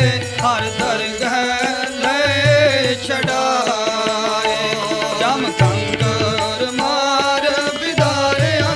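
Sikh kirtan: a man sings a wavering melody over the steady reeds of a harmonium, with deep tabla bass strokes recurring every couple of seconds.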